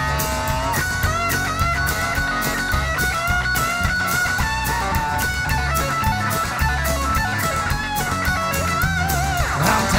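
Live country-rock band playing an instrumental break: an electric guitar lead with bent, gliding notes over strummed acoustic guitar and a drum kit.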